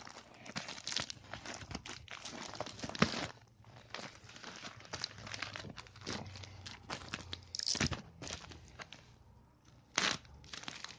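Plastic postal mailer bag rustling and crinkling as it is handled, with a sharp crackle about three seconds in and louder rustles near the end.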